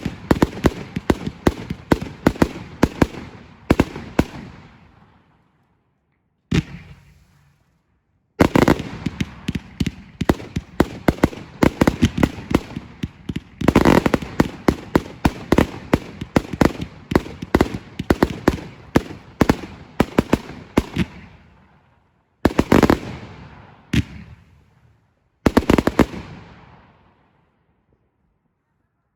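Fireworks firing in volleys: rapid, dense bangs and crackles. Each volley starts suddenly, lasts several seconds and then fades away, with short silent gaps between volleys.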